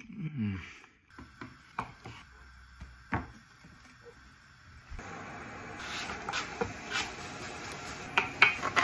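Kitchen sounds: a short hummed 'mmm' of tasting at the start, then a few sharp knocks and clicks of things being handled on the worktop. From about five seconds in, diced onion frying in a pan gives a steady hiss, with clicks and scrapes of a grater and utensils over it, the loudest near the end.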